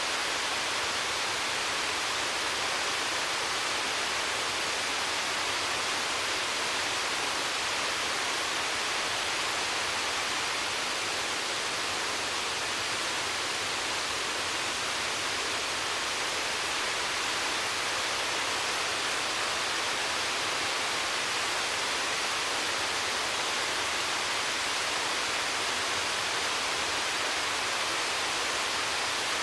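Waterfall: falling water rushing steadily, a constant hiss without breaks or changes.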